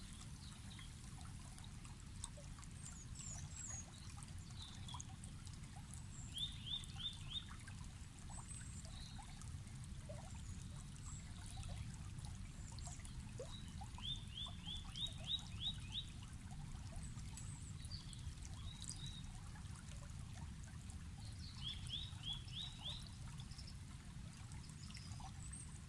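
Waterfall: a steady low rush of falling water. Over it a bird calls three times in quick runs of five or six short rising notes, with scattered higher chirps.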